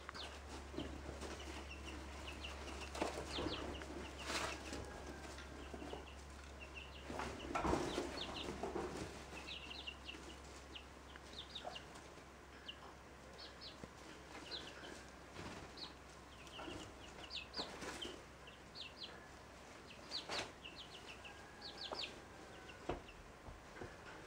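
Young rooster chicks peeping in many short, high chirps, with lower clucking from an adult hen mixed in, loudest about three and eight seconds in. A steady low hum lies underneath.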